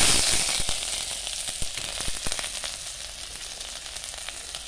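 Pounded ginger-garlic paste sizzling in hot oil in a steel kadai, with scattered crackles. The sizzle is loudest just after the paste goes in and eases off gradually.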